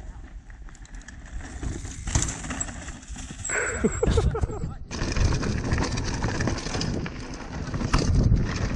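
Mountain bike riding a dirt trail: tyre rumble and wind noise, much louder from about five seconds in, with a brief shout of a voice near the middle.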